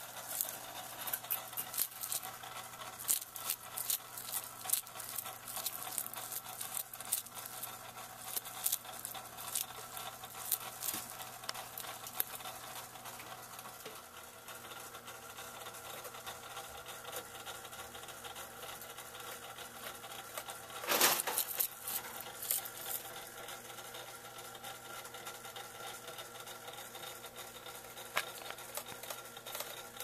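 Frilled dragon crunching a cicada: scattered crisp clicks, thickest in the first half, over a steady hum. A brief louder burst of noise about two-thirds of the way through.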